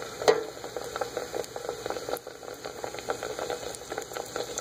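Beignet dough deep-frying in hot oil in a wire fry basket, a steady crackling sizzle of bubbling oil. A sharp click comes about a quarter second in, with a few lighter clicks as metal tongs touch the basket.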